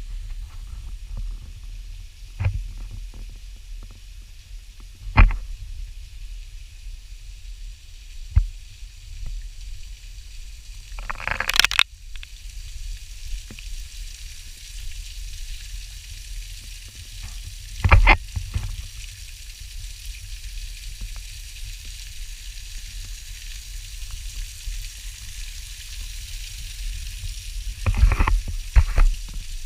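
Steady hiss of rushing water, heard through a GoPro's waterproof housing, which muffles the middle of the sound and leaves hiss and low rumble. Scattered knocks and bumps of the camera housing being handled come through it, one longer scrape about eleven seconds in and a short cluster near the end.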